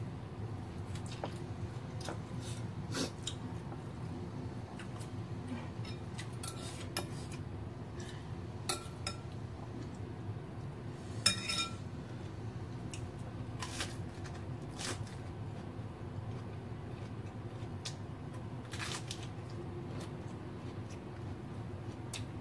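A metal spoon clinks against ceramic bowls and plates, with scattered light clicks of tableware over a steady low hum. The loudest clink, which rings briefly, comes about eleven seconds in.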